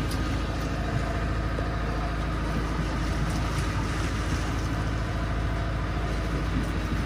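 Boat engine idling steadily, a low even drone.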